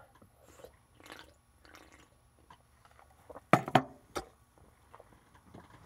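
Faint sips and swallows from a soda can, followed by a few sharp clicks and knocks close to the microphone about three and a half seconds in, as things are handled.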